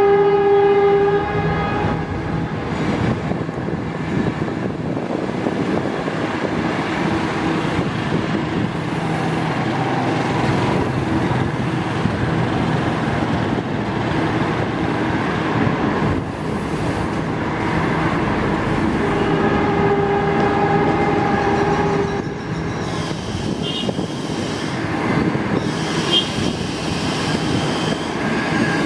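A passenger train's coaches rolling past on the rails with a steady rumble. A train horn sounds one steady tone that ends about a second in, then sounds again for about three seconds about two-thirds of the way through. Faint, brief high wheel squeals come near the end.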